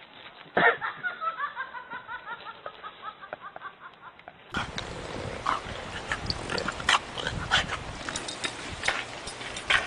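A person laughing in a quick run of short notes that fall in pitch. After a cut, a dog on a rope swing is heard, its noises mixed with many scattered clicks and rustling.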